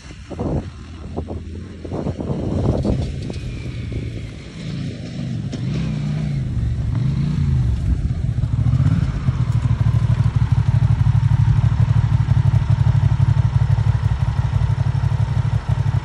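Off-road buggy's Yamaha TRX850 parallel-twin motorcycle engine revving up and down as it drives across grass, then running steadily at idle, louder and close by, from about nine seconds in.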